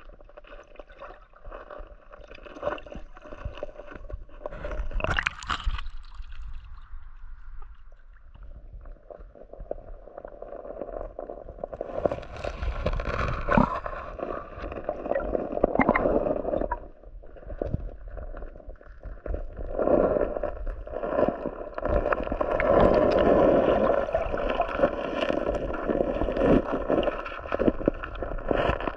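Muffled water gurgling and sloshing around a camera held underwater in a shallow rocky creek, with scattered clicks and knocks as the gravel bed is disturbed. It grows louder about halfway through and again later on.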